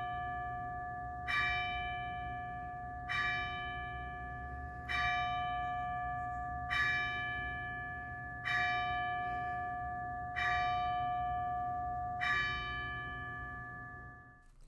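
A single church bell tolling at a slow, even pace, about one stroke every two seconds, seven strokes in all at the same pitch, each ringing on and fading. The ringing is cut off near the end.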